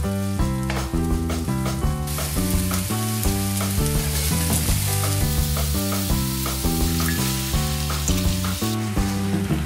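Food sizzling in a frying pan, much louder from about two seconds in until near the end, over background music with a stepping melody and bass line.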